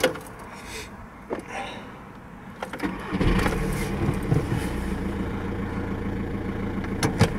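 VW Golf 5 diesel engine started with the key: a sharp click at the very start, a quiet pause, then the engine catches about three seconds in and settles into a steady idle.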